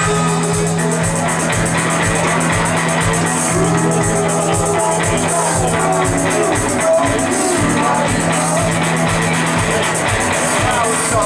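Rock band playing live: electric guitar and drum kit over a low held note that shifts about seven and a half seconds in.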